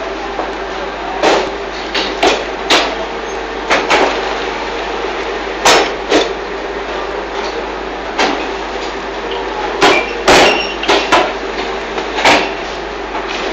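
Fly ash brick making machine running: a steady machine hum broken by about a dozen sharp, unevenly spaced metal clanks and knocks as its press and mould parts work.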